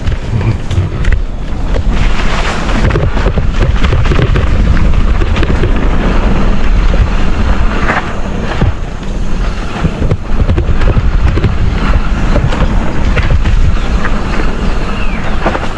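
Wind buffeting the microphone with the rumble and rapid rattling knocks of a mountain bike riding fast downhill over rough trail.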